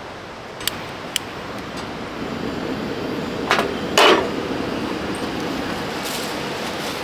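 A few sharp knocks and clinks of cooking utensils and cookware, four in all, the loudest and most ringing about four seconds in, over a steady rushing background noise.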